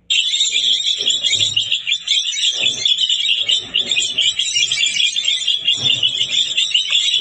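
Flock of small birds chirping in a dense, continuous high-pitched chatter that starts suddenly.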